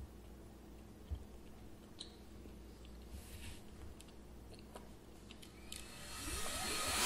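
Faint chewing of a caramel-filled milk chocolate bar, with small scattered mouth clicks. A soft hiss swells over the last second or so.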